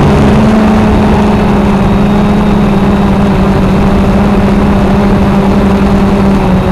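Quanum Nova quadcopter's brushless motors and propellers humming steadily in flight, heard from the onboard camera, with a rushing noise over the hum.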